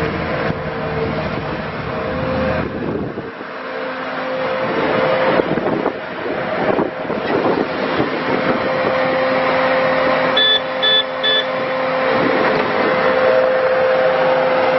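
Bobcat T650 compact track loader's diesel engine running, its sound rising and falling as the machine works. Three short backup-alarm beeps come about ten and a half seconds in.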